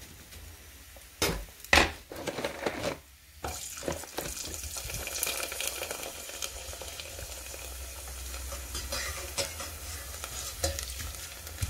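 A few sharp clacks of a metal slotted spatula against a stainless steel pot, then a kerupuk cracker frying in hot oil with a steady crackling sizzle from about three and a half seconds in, the spatula tapping and scraping now and then.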